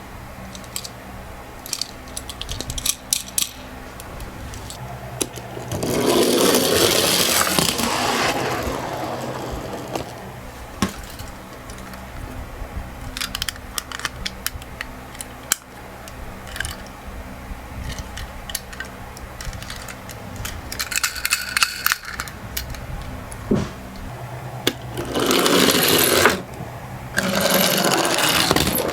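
Miniature toy cars rolling and rattling down a slope in a few runs of one to two and a half seconds, the first about six seconds in and two more near the end, with scattered clicks of the cars being handled and set down.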